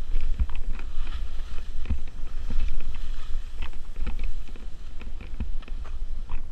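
Skis turning through heavy, wet spring slush: a scraping hiss from the edges, with a thump at each turn roughly every second, over wind buffeting the microphone.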